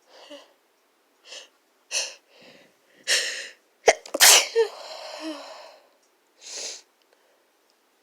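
A person with the sniffles sneezing: a few short, catching inhales build up, then a loud sneeze about four seconds in that trails off in a long breathy rush, followed by one more breath.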